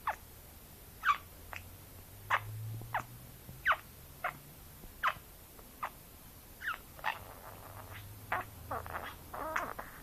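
Budgerigar chirping in a run of short, sharp falling calls, one every half second or so, breaking into a busier warbling chatter in the last few seconds.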